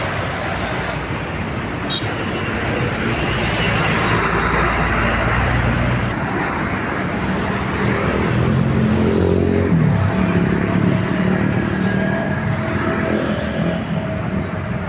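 Road traffic passing close by: continuous tyre and engine noise of motor vehicles, with a heavier engine hum rising and falling in the second half.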